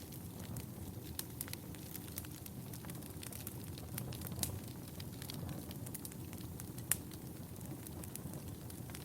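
Wood fire in a fireplace crackling, with a steady low rumble and frequent sharp pops, one louder snap about two-thirds of the way through.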